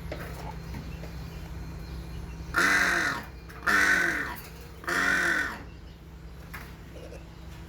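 A hornbill calling: three loud, harsh calls about a second apart, over a steady low hum.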